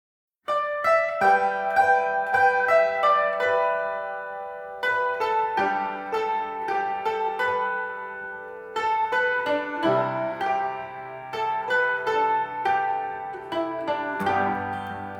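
Background music played on plucked strings, a run of picked notes ringing over one another. It comes in suddenly about half a second in after dead silence.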